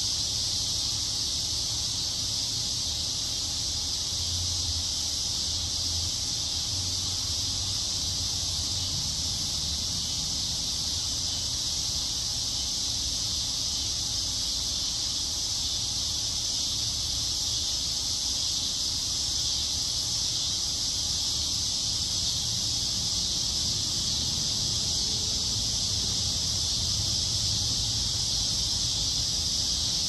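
Dense, continuous chorus of summer insects: a steady high-pitched buzz that holds at one level without breaks, with a low rumble underneath.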